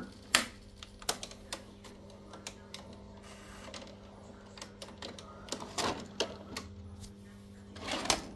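Panasonic NV-J22 VHS video cassette recorder's tape mechanism clicking and whirring as it stops, unthreads the tape and ejects the cassette, over a steady low hum. Near the end the cassette slides out of the slot with a short scrape.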